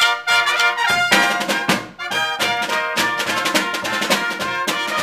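Military brass band playing a loud, brisk piece with many quick notes.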